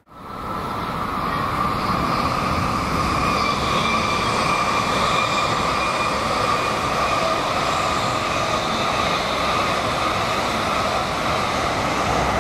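Tokaido Shinkansen bullet train running past at moderate speed (about 110–160 km/h): a steady rush of wheels and air with a held whine, rising in over the first second or two.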